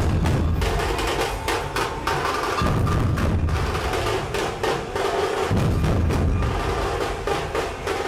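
Percussion-heavy music: fast, dense drum strokes over a deep bass that comes in and drops away every few seconds.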